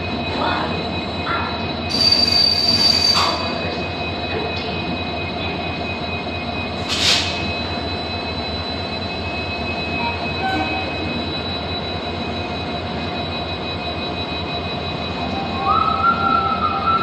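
Passenger coaches of an AC express train rolling slowly past a platform, with a steady rumble of wheels on rail and a thin, constant high squeal. A louder squeal with a hiss comes about two seconds in, and a short hiss around seven seconds. Music starts near the end.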